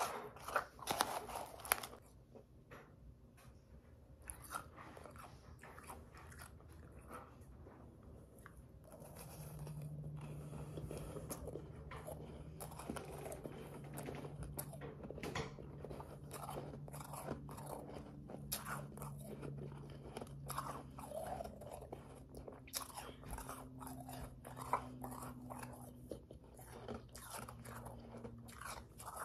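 Close-up crunching and chewing of mouthfuls of powdery, slushy ice: a quick, uneven run of crisp crunches, loudest in the first two seconds. A faint low steady hum comes in from about ten seconds in.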